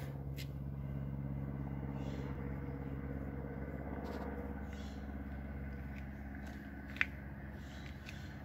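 A steady low mechanical hum, with faint scattered ticks and one sharp click about seven seconds in.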